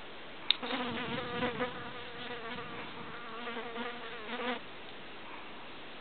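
A flying insect buzzing close to the microphone: a steady, slightly wavering buzz that starts just after a small click and stops abruptly about four and a half seconds in.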